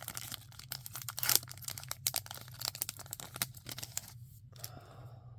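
A trading card pack wrapper being torn open and crinkled in the hands, a dense crackle that fades about four seconds in.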